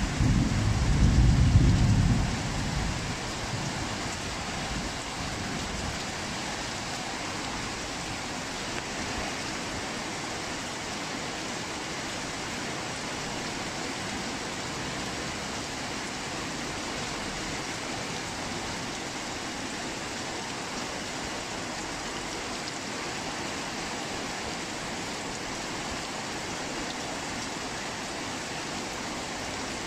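Heavy rain falling steadily. A low rumble of thunder is the loudest sound in the first two seconds or so, then fades out.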